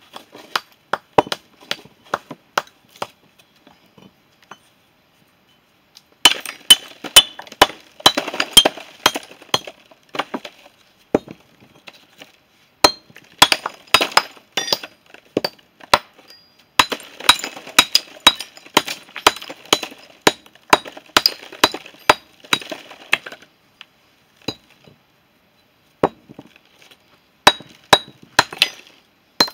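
Stonemason's hammer striking a paving stone to trim its edges by hand, dressing it into shape. Runs of quick, sharp blows with a faint metallic ring, broken by short pauses while the stone is turned and checked.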